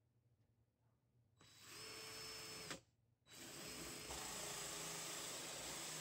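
Dewalt cordless drill spinning a bimetal hole saw through the lock-installation guide to bore the handle hole in a door. The drill starts about a second and a half in, stops briefly, then starts again and runs steadily, getting a little louder about four seconds in as it keeps cutting.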